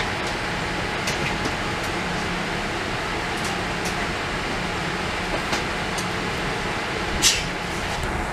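Steady airliner cabin ambience on a Boeing 787-8: ventilation air hiss with a low steady hum. A few faint clicks, and a brief sharper hiss near the end.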